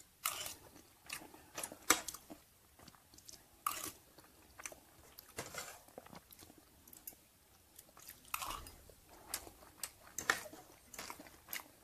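Close-miked chewing of a mouthful of rice and stir-fried chicken organs: wet mouth smacks and crunches at irregular intervals, a few louder than the rest.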